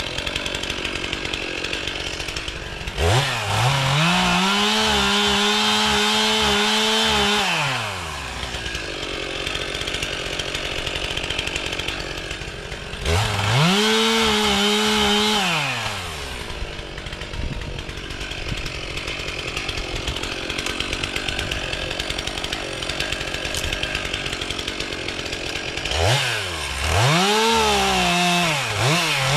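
Chainsaw revving up and cutting into a downed log. It holds full speed for about five seconds from about three seconds in, then again for about three seconds around the middle, then in several short revs near the end. In between it drops back to a lower, steadier sound.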